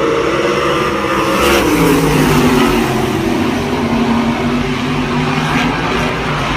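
Race car engine at speed, its note dropping in pitch over the first couple of seconds as the car goes past, then holding fairly steady.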